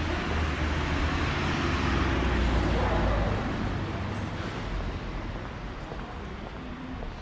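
Street traffic: a road vehicle passes close by. Its engine rumble and tyre noise swell to a peak about three seconds in, then fade away.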